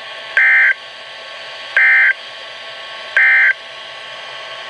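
NOAA Weather Radio EAS end-of-message code: three short, identical bursts of warbling two-tone digital data, about a second and a half apart, marking the close of the warning. Steady radio static hiss lies between and after the bursts and grows slowly louder.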